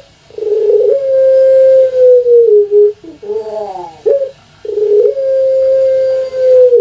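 Puter pelung, a domesticated ringneck dove (Streptopelia risoria), singing its long call: a long held coo, then a quick run of falling notes and a second long held coo of about two seconds.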